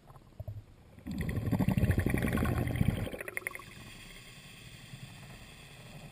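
Underwater burst of bubbles gurgling and crackling past the camera for about two seconds, starting about a second in: typical of a diver's exhaled breath. It trails off into a few clicks and a faint hiss.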